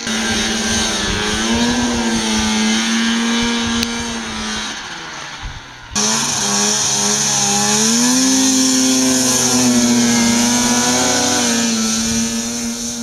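Two-stroke snowmobile engines running at high revs on a hill climb, the pitch wavering up and down with the throttle. The sound cuts abruptly about six seconds in to another sled, whose pitch climbs around eight seconds in and holds.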